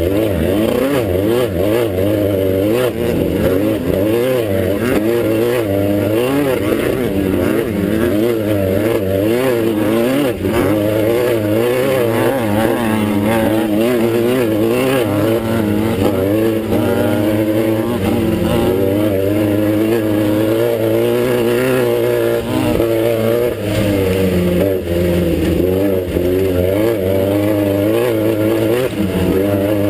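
Class 9 race buggy's air-cooled Volkswagen engine running hard at race pace, its revs rising and falling constantly with the throttle.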